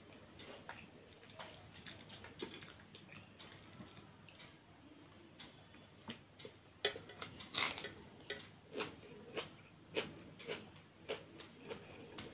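A person chewing a mouthful of food with wet mouth smacks, which come about two a second in the second half. Quieter squishing of fingers mixing pulao and curry on a plate comes before them.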